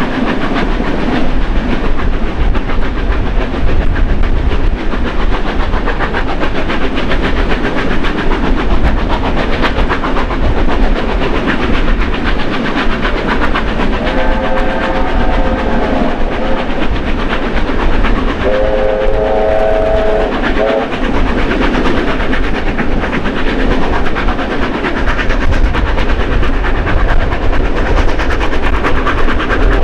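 Heritage train carriage running behind steam locomotives 3016 and 3642: a steady loud rumble with rail clatter. About halfway through, a locomotive's steam whistle sounds twice, several notes at once, the two blasts some four seconds apart.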